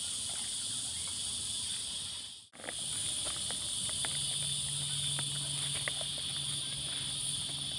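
A steady, high insect chorus buzzing without a break. It cuts out for a moment about two and a half seconds in, then carries on.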